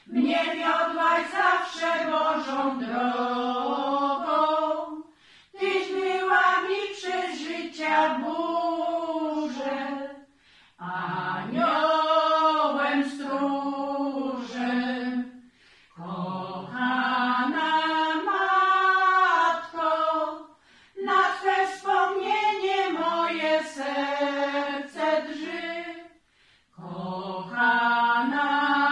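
A small women's choir sings a slow Polish hymn a cappella. The singing comes in phrases of about five seconds, each ending in a brief pause for breath.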